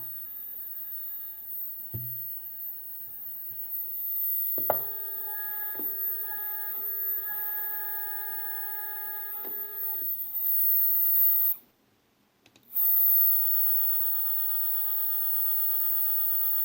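3D-printer stepper motor driven by itself at a feed rate of 1000, running with a steady whine of several pitches over a high thin whistle. It clicks a few seconds in, stops abruptly for about a second, then starts again with the same whine.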